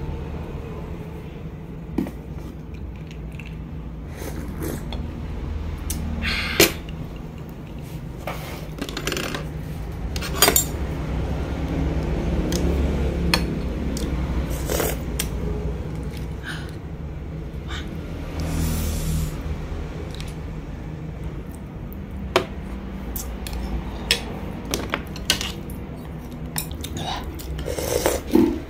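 Metal spoon and chopsticks clinking and scraping against a ceramic bowl of noodle soup, in scattered sharp clicks with softer stirring between, over a low steady hum. Near the end comes a louder mouth sound as a spoonful is sipped.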